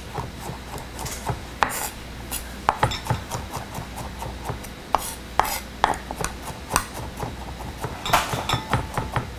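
French chef's knife rough-chopping garlic on a wooden cutting board: irregular sharp taps of the blade against the board, coming closer together near the end.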